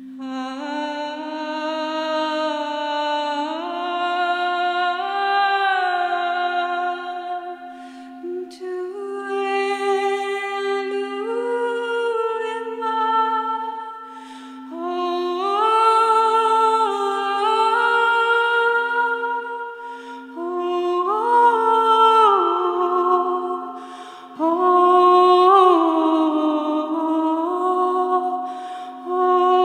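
A woman singing long held notes that step and slide between pitches, in phrases separated by short breaks, over a steady low drone that pulses gently underneath.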